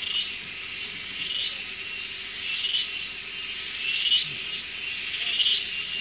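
Steady, high-pitched chorus of forest insects, swelling into a louder shrill pulse roughly every second and a half.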